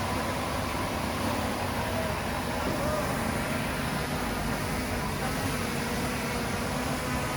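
Heavy-equipment diesel engine running steadily, with an even level throughout.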